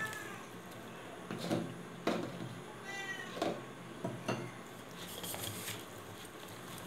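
A domestic cat meowing, one call about three seconds in. Around it come several short knocks and rustling from hands mixing chicken wings with flour in a steel pot.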